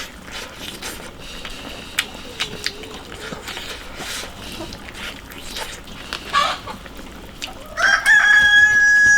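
A rooster crowing: one long, loud held call begins near the end. Before it there are only scattered light clicks and taps.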